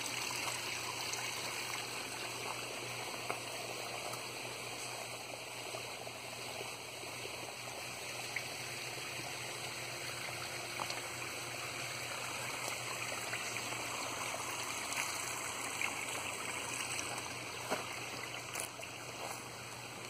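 Small garden-pond waterfall running, a steady trickle and splash of water.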